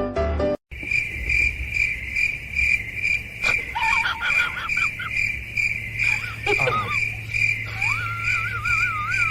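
A cricket chirping steadily at about two to three chirps a second. Over it, a wavering, whistle-like call glides up and down several times in the second half. Piano music cuts off just under a second in.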